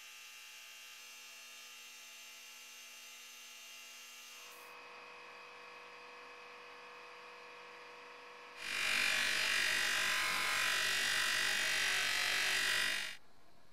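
A faint steady electrical hum, then a small bench buffer's polishing wheel running with a metal coin weight held against it: a loud, even whir that starts about two-thirds of the way in, lasts about four and a half seconds and stops suddenly.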